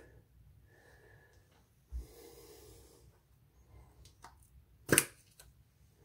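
Quiet handling of a small plastic tub of silicone plumber's grease as its lid comes off: a soft low thump about two seconds in and one sharp click about five seconds in.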